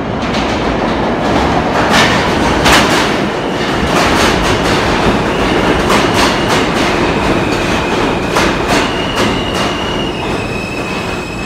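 Kawasaki R160B-1 subway train running into the station alongside the platform. Its wheels clatter over rail joints above a loud, steady rumble, and a high steady whine comes in about halfway through.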